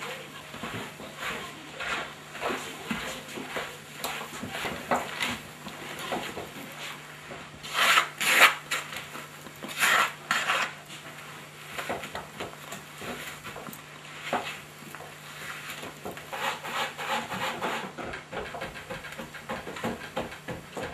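Cornmeal dough being worked: a wooden spatula scraping and stirring in a metal pan, then hands kneading and patting the dough flat on a floured wooden board. It comes as a run of irregular scrapes and rubs, with a few louder scrapes about eight and ten seconds in.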